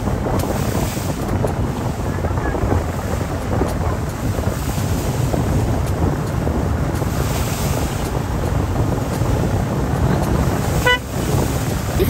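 Motorboat under way: a steady engine drone mixed with water rushing past the hull and wind buffeting the microphone. A brief high tone sounds near the end.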